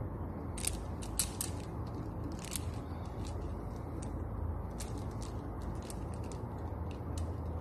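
Dominican amber prayer beads clicking against one another as the strand is handled: irregular light clicks, a few sharper ones near the start, over a steady low rumble.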